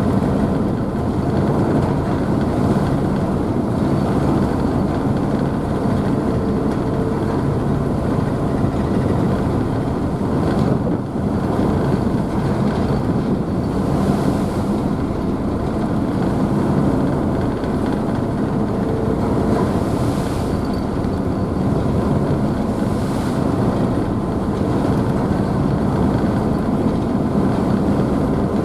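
Car ferry's engines running with a steady low hum, under the constant rush of the wake and spray churned up at the stern. Now and then a brief swell of hiss from splashing water or a gust.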